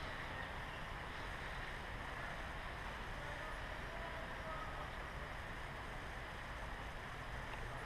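Steady rumble and hiss of wind on the microphone, with no distinct events.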